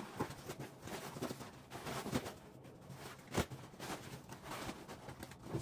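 Fabric rustling and shuffling as folded towels are stuffed down into a Navy sea bag, with one sharp knock about three and a half seconds in.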